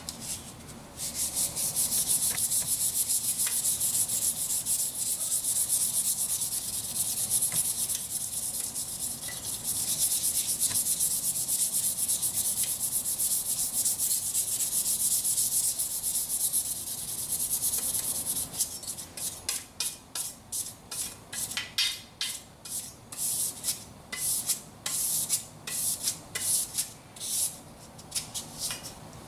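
Wet sandpaper scrubbed back and forth by hand along the steel blade of a 1950s Sabatier carbon-steel chef's knife. It is a fast, continuous rasping for the first two-thirds, then slows to separate strokes, about two a second.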